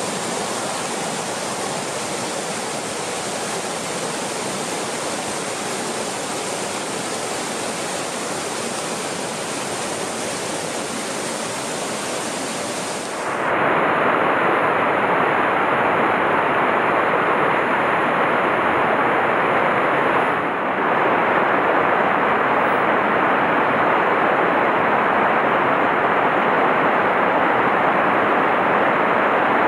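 Mountain stream rushing over rocks and small cascades, a steady hiss of white water. About thirteen seconds in it changes to a louder, fuller rush.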